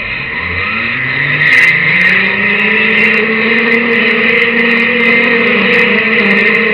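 Zipwire pulley rolling down the cable, a whine that rises in pitch as it picks up speed over the first couple of seconds and then holds steady, over a loud steady hiss, with scattered small clicks.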